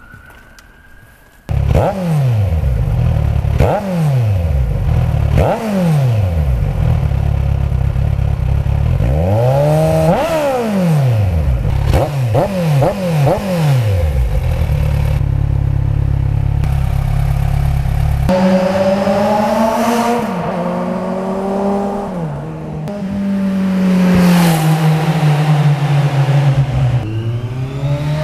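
Kawasaki Z1000SX inline-four through a Toce three-port exhaust. It comes in suddenly about a second and a half in, then is revved in quick blips, each one rising and falling in pitch, before settling to a steady idle. From about 18 s it runs with slower, longer rises and falls in pitch.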